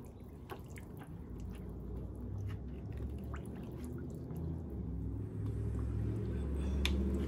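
Green silicone-tipped spatula and tongs stirring and moving meat in a large aluminium pan of chile broth: soft liquid squishing and sloshing with small scattered clicks. A low rumble grows louder in the second half.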